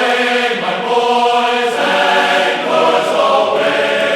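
Music of sustained, choir-like chanting voices, holding chords that shift every second or so.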